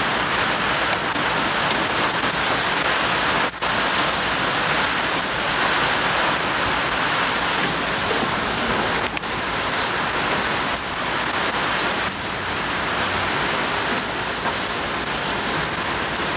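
Heavy rain from a tropical storm falling in a steady, dense hiss, cutting out very briefly twice.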